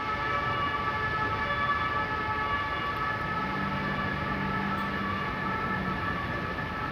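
Steady mechanical whine of several high held tones over a continuous rush of outdoor background noise. A lower hum comes in about three and a half seconds in and stops near six seconds.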